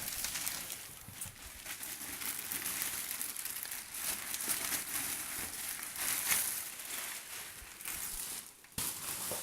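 Plastic and cardboard packaging crinkling and rustling as it is handled, with many small crackles and scrapes throughout.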